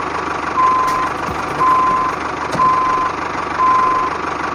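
Reversing-alarm beeps: four even, single-pitch beeps about a second apart, each about half a second long, over a steady hiss.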